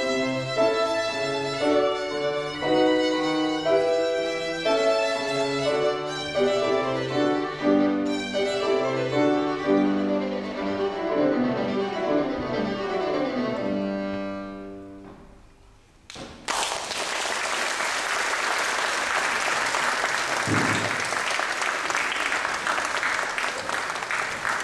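Violin with piano accompaniment playing the closing bars of a concertino movement, ending on a held note that dies away. About two-thirds of the way in, after a brief pause, audience applause breaks out and continues.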